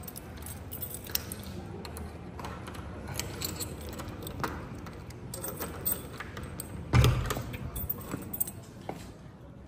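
Keys jangling, with many small clicks and knocks of handling, and one heavy thump about seven seconds in.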